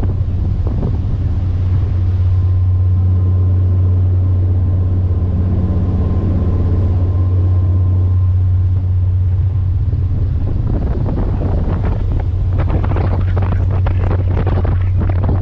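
Ferry's engines droning as a steady low hum, under heavy wind buffeting on the microphone. The buffeting is strongest at the start and again from about two-thirds of the way in.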